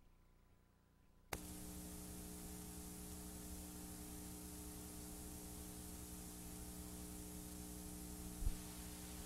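Steady electrical hum and hiss that switch on suddenly about a second in, with a short low thump near the end.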